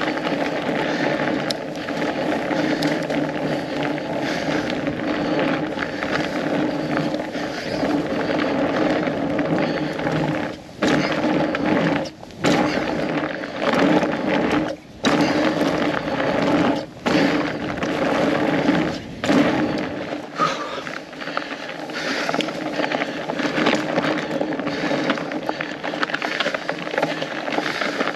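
Fat bike's studded tires rolling fast over a frozen trail, a steady humming rumble that cuts out briefly several times in the middle.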